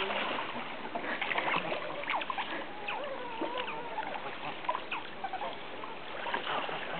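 Otters splashing as they swim and tumble through shallow, running water, over a steady rush of water.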